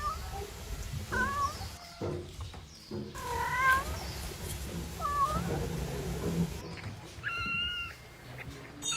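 A cat meowing about five times. The calls are spaced a second or two apart, and the last one, near the end, is higher and held longer.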